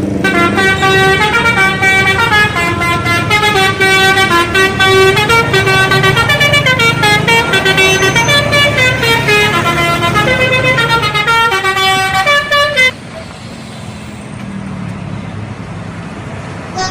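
A bus telolet horn playing a quick melody of many short notes stepping up and down, which cuts off suddenly about thirteen seconds in. A bus engine runs underneath, and quieter engine and road noise follows the cutoff.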